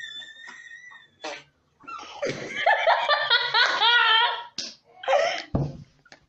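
A boy bursts out laughing about two seconds in, a loud wavering laugh lasting about two seconds. A short sharp sound and a low thump follow near the end.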